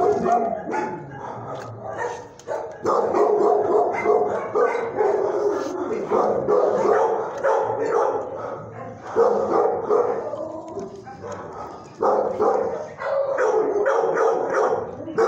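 Shelter dogs barking and yipping over and over, almost without pause, with brief lulls about two and a half seconds in and again around eleven seconds.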